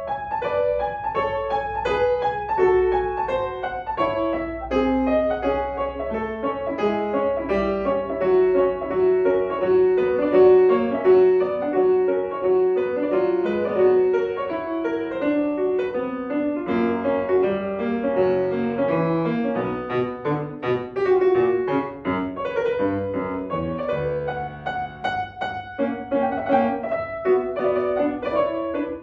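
Grand piano played solo, a steady run of many quick notes with a melody in the middle range.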